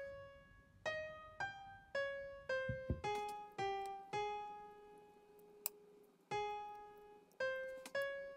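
Background music: a slow piano melody of single notes, each ringing and fading, with a couple of faint clicks.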